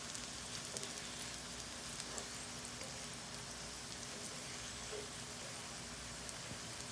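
Potato chips frying in hot oil in a pan: a steady sizzle with small scattered crackles.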